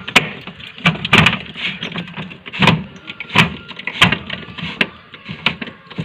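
Irregular clicks and knocks as a small screwdriver works the screws out of a fridge's plastic freezer compartment, some knocks with a dull thud.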